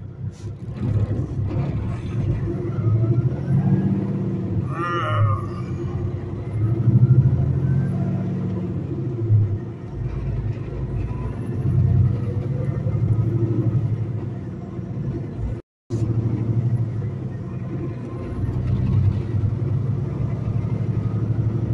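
Semi-truck's diesel engine heard from inside the cab, pulling away from a stop and accelerating, its note rising and breaking as it works up through the gears. The sound cuts out completely for a moment about three-quarters of the way through.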